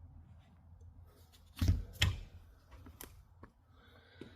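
Two solid knocks about one and a half seconds in, followed by a few lighter clicks: a rifle and its parts being handled and set down during reassembly.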